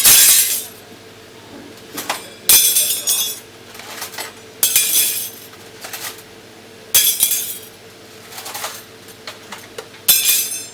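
Yellow-crested cockatoo giving harsh, raspy screeches, repeated roughly every two seconds.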